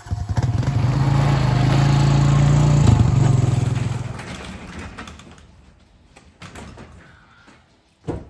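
ATV engine running at a steady speed, loud for about four seconds and then fading away. A single thump near the end.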